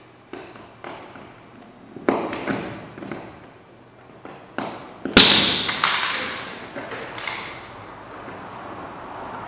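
Sharp plastic knocks and clicks from a small RJ45 wall socket being worked with a screwdriver and pressed into place by hand. They come irregularly, and the loudest is about five seconds in.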